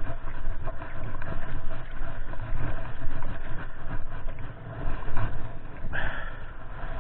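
A gloved hand digging and scraping in wet creek-bank mud: a dense run of short squelches and scrapes over a steady low rumble.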